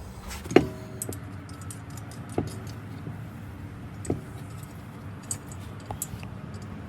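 Steel lug nuts being threaded onto the wheel studs by hand, metal clinking on metal: three sharper ringing clinks about half a second, two and a half and four seconds in, with light ticking between.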